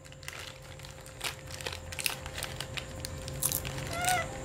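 A foil snack packet crinkling in irregular little crackles as a baby monkey paws and bites at it, over a faint steady hum. A short squeak comes near the end.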